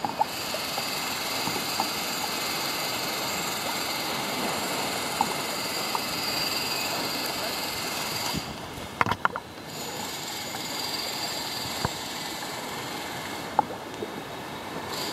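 Steady rushing hiss of a kayak moving over calm sea water, with a few small splashes and knocks from paddling, bunched together about nine seconds in.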